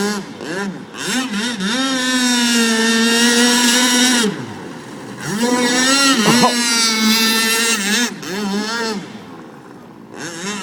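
Pro Boat Blackjack RC boat's brushless electric motor whining, its pitch sweeping up and down with bursts of throttle and holding high for a couple of seconds at a time. It fades near the end.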